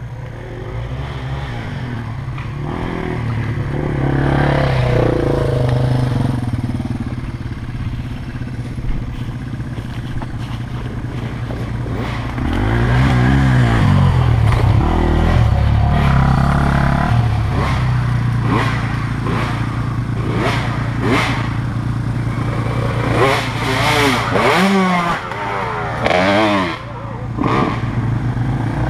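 Dirt bike engines close by: the orange KTM 450SX's single-cylinder four-stroke running steadily near the microphone while other trail bikes ride up and rev past. A Yamaha trail bike revs up and down about halfway through, and there are several quick revs near the end.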